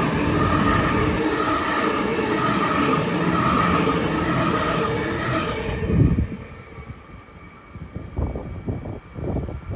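Sydney Trains Waratah double-deck electric train running past a station platform, with the motor whine, wheel and rail noise pulsing as the cars go by. The noise swells and then drops away sharply about six seconds in as the train clears, leaving a fainter rumble of a distant train.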